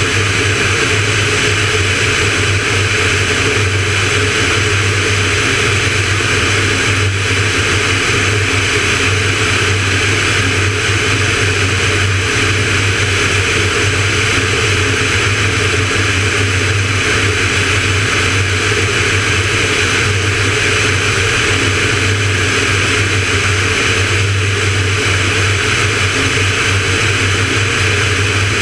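Van's RV-9A in flight: the single piston engine and propeller run at a steady, unchanging drone, with a constant rush of airflow, heard from a camera mounted on the outside of the airframe.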